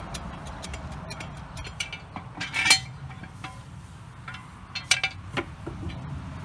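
Scattered metal clinks and knocks from jacking up a tractor and pulling the axle stand out from under it, with a louder clank about two and a half seconds in and another about five seconds in.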